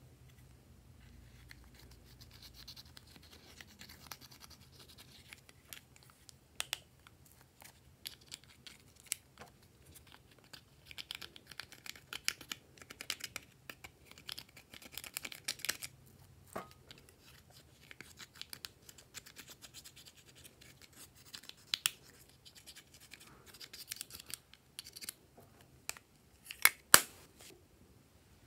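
Pressed eyeshadow being scraped and crumbled out of a plastic palette's pans: a run of dry scratching and small clicks, with a couple of louder knocks near the end.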